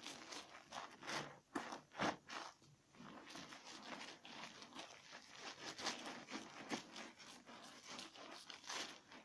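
A bar of 72% laundry soap being lathered by hand: irregular wet rubbing and crackling strokes, several a second, with a few louder ones between about one and two seconds in.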